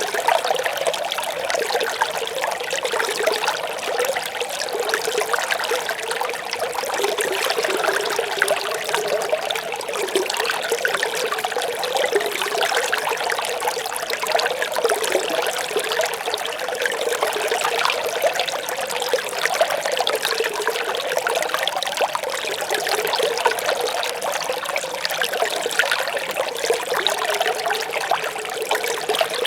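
Shallow brook babbling and trickling steadily, an even splashing flow with no breaks.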